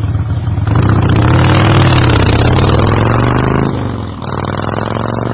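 Motorcycle engine running hard with a deep, pulsing note. It swells about a second in and eases back around four seconds in.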